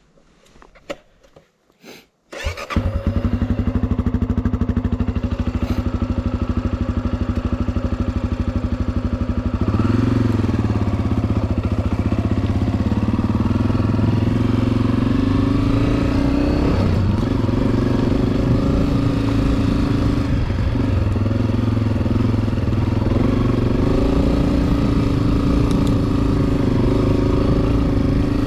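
Honda CRF250F single-cylinder four-stroke dirt bike engine: a few faint clicks, then the engine catches about two seconds in and runs at a steady idle. About ten seconds in the throttle opens and it pulls away, its pitch rising and falling with the throttle while riding.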